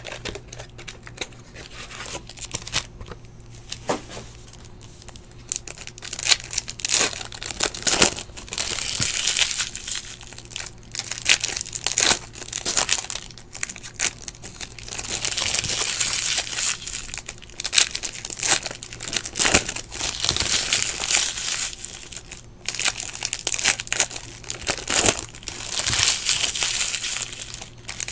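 Foil wrappers of 2017 Bowman Chrome baseball card packs crinkling and tearing as packs are opened, in several bursts a few seconds apart, with scattered clicks of handling.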